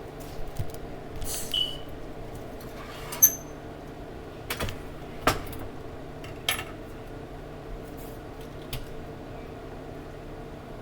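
Kitchen dishes and utensils being handled: a series of separate clinks and knocks, the loudest about three seconds in with a brief metallic ring, over a steady low hum.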